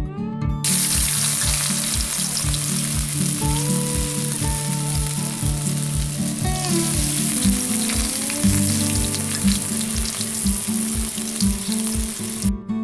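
Hot cooking oil sizzling loudly as balls of leafy-greens batter fry into fritters (bora) in a cast-iron karahi. The sizzle starts about half a second in, dips briefly about halfway, and cuts off just before the end. Guitar background music plays underneath.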